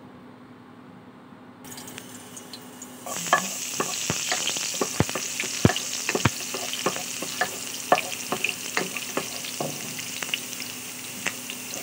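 Minced garlic frying in hot cooking oil, starting to sizzle about three seconds in, with the sharp clicks of a wooden spoon stirring and knocking against the pan.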